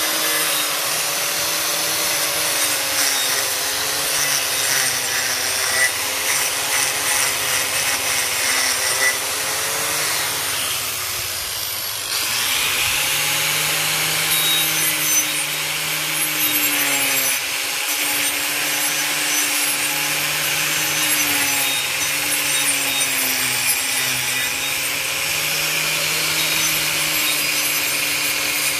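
Makita angle grinder with a carving disc grinding into the dead wood of a Chinese elm: a steady motor whine whose pitch wavers as the disc bites and eases, over a rasping, scraping grind. The grind lightens briefly about eleven seconds in, then bites in again.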